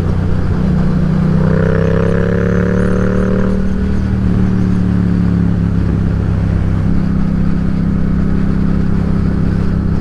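Yamaha XSR700 motorcycle's parallel-twin engine running under way at road speed. A short rising note comes in about a second in, and the engine's pitch shifts a couple of times.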